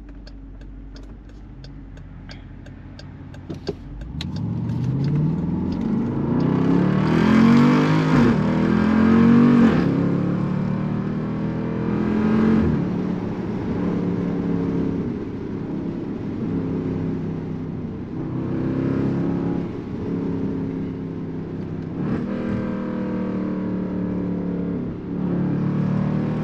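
2019 Jeep Grand Cherokee SRT's 6.4-litre HEMI V8 with its mid mufflers cut and its valved exhaust mufflers open, heard from inside the cabin. It idles under a light regular ticking, then about four seconds in it pulls away and revs up through the gears, the note dropping at each upshift before climbing again.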